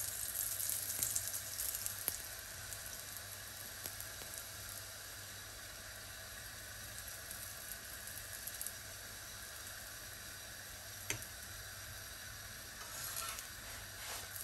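Ghee sizzling on a hot tawa under a paratha. It crackles loudest in the first couple of seconds as the ghee goes on, then settles to a steady low sizzle. A single sharp click comes about eleven seconds in.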